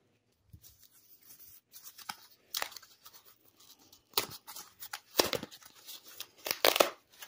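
Paper wrapping and plastic packing material from a comic book mailer being handled and pulled apart: irregular crinkling, tearing rustles that come in sharper bursts in the second half.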